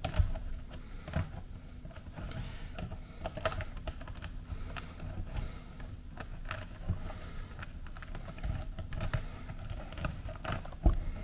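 Top mesh being picked at and peeled loose by hand from a scrap of Blanke Permat uncoupling membrane: irregular small clicks and crackles.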